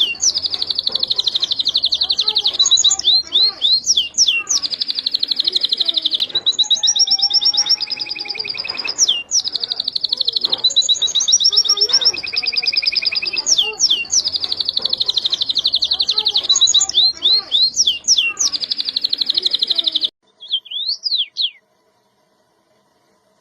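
Domestic canary singing a long song of rapid trills and rolling phrases. The song stops suddenly about 20 seconds in, followed by a few short notes.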